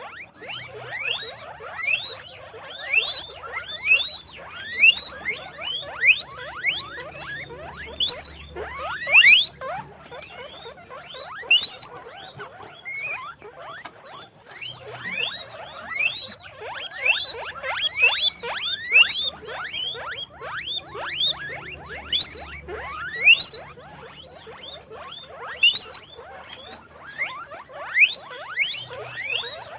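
Many guinea pigs squealing, short rising high-pitched wheeks that overlap and come in quick clusters, with a steady faint high whine underneath.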